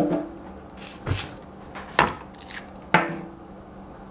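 Chef's knife knocking on a plastic cutting board while a shallot is cut, a few sharp knocks about a second apart, then the shallot's dry skin being peeled by hand.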